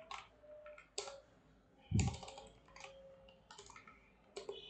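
Computer keyboard typing: a scattering of irregular keystroke clicks, with one louder, heavier stroke about two seconds in.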